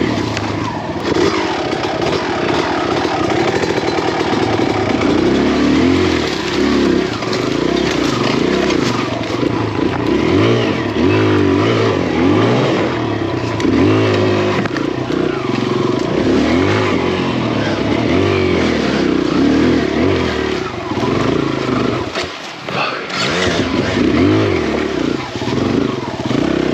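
Single-cylinder four-stroke Kawasaki KLX dirt bike engine, built up with a 170cc big-bore kit and an aftermarket exhaust, revving up and down over and over as it pulls up a hill climb. Near the end the engine falls off briefly, then picks up again.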